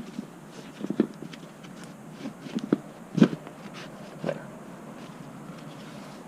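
Scattered knocks, clicks and rubbing as the bead of a 4-inch fat e-bike tire is pushed by hand onto the rim of the rear hub-motor wheel. The sharpest knocks come about a second in and a little after three seconds.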